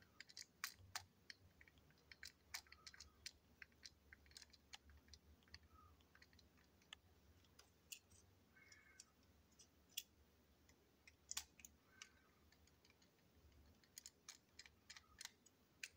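Faint, irregular clicks and taps of small plastic parts being handled: a model train coach's plastic underframe and wheelsets being taken apart by hand.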